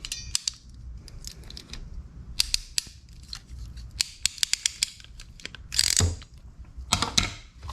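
Hand wiring tools working on a wire and its spade terminal: sharp clicks and snips, with a run of quick clicks about four seconds in and a short rasp near six seconds.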